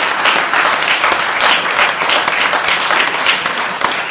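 Audience applauding: many people clapping together in a dense, steady round of applause.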